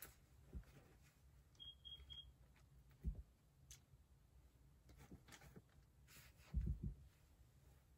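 Near silence, broken by a few soft thumps and rustles of a person shifting position, and three quick, faint, high beeps about two seconds in.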